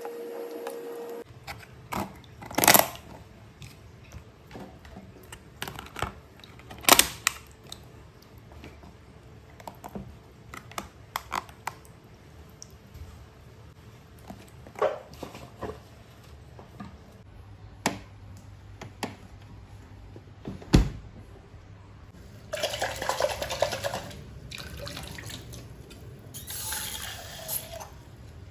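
Kitchen work sounds: scattered clinks and knocks of dishes and utensils. Near the end a tap runs water into the sink in two spells. A steady hum stops about a second in.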